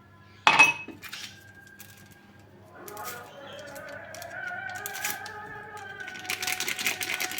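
Kitchen dishware clinking: one sharp, loud clink about half a second in, then a few seconds of handling sounds with a wavering squeaky tone, getting busier with clattering near the end.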